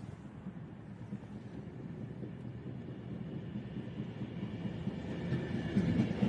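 A train approaching the station: a low rumble grows steadily louder, and a thin, steady high ringing joins in about halfway through.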